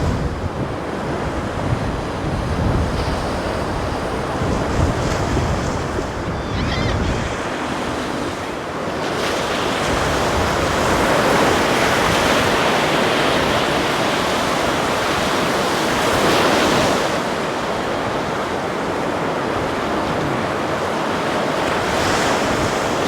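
Ocean waves and surf washing steadily, with wind rumbling on the microphone; the wash grows brighter and louder about nine seconds in.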